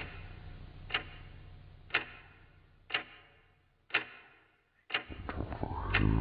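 Clock-like ticking sound effect, one sharp tick about every second, over a low hum that fades away. About five seconds in, a louder pitched sound comes in and the ticks come more often.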